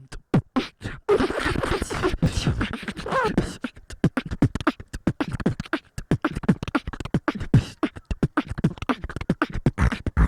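Human beatboxing: fast, rhythmic vocal percussion of clicks and hits, with some sliding pitched vocal sounds in the first few seconds.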